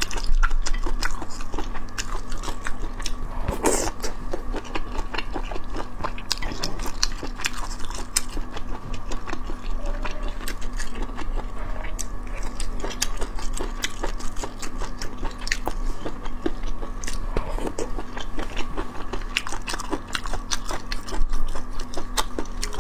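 Close-miked chewing and biting of scallion-oil sea snail strips, with many short wet clicks from the mouth. A steady faint hum runs underneath.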